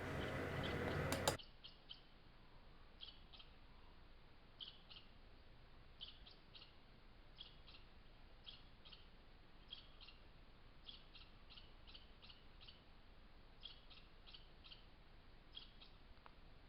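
Faint bird chirping: short high chirps in twos and threes, repeating about once a second, after a louder sound that cuts off about a second and a half in.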